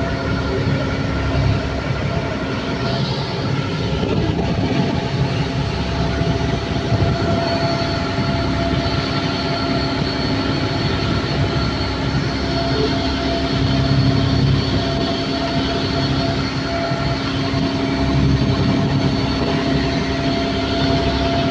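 Motor yacht under way: its engine drones steadily with several fixed humming tones, over a constant rush of water from the wake.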